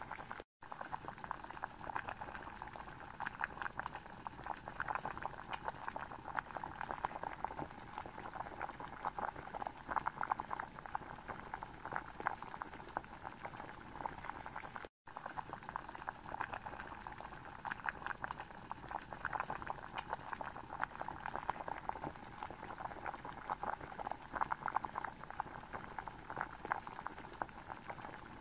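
Thick, creamy butter chicken curry sauce simmering in a pan, bubbling with many small steady pops. The sound drops out for an instant twice.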